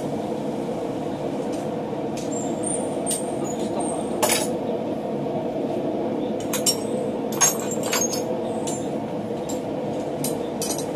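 Light, irregular clinks and taps of steel tools and bar stock against a steel block, about a dozen in all, some with a brief high ring, over a steady low background noise.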